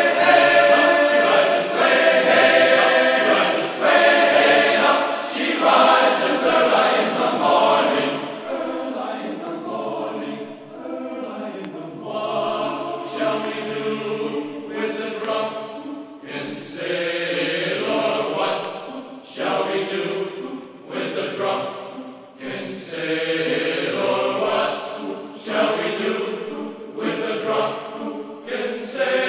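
Background music: a choir singing, with long held phrases that rise and fall in loudness.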